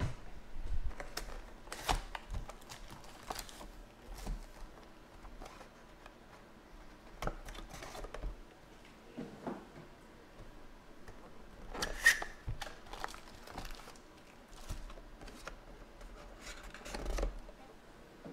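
Handling sounds of a trading-card box being opened and its foil packs laid out: irregular rustling, crinkling and tearing of wrapper and cardboard, with short taps and clicks as packs are set down. The sharpest click comes about twelve seconds in.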